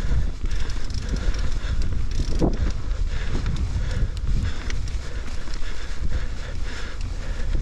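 Mountain bike rolling fast along a dirt singletrack: tyre noise on the dirt with scattered clicks and rattles from the bike, under a heavy wind rumble on the microphone.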